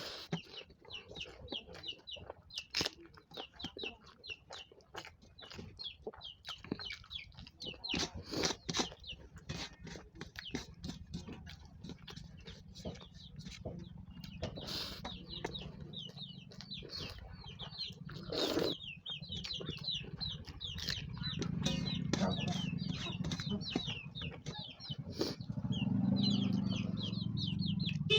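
Close-up chewing and mouth clicks of someone eating rice, with chickens clucking and chirping in the background. A low rumble grows louder over the last several seconds.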